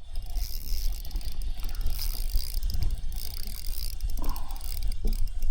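Fishing reel being cranked in repeated stretches, a high rasping whir, as a small drum is reeled in to the kayak, over a steady low rumble.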